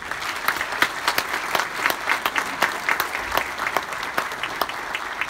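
Congregation applauding: many hands clapping in a dense patter that breaks out all at once and keeps up steadily.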